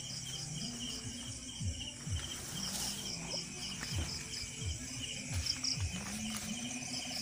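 Night chorus of crickets and other insects: high, fast-pulsed chirps repeating steadily. Underneath, a short low call drops in pitch about once a second.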